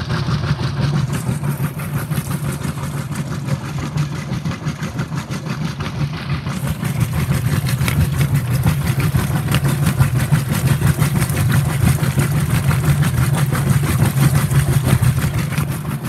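Whirlpool WTW5300SQ0 top-load washing machine agitating on high agitation: a steady motor hum under a dense churning sound, growing a little louder about halfway through.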